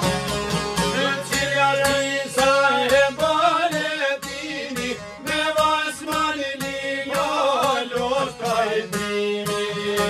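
Albanian folk song: several long-necked plucked lutes playing together, with a man's voice singing over them in wavering phrases.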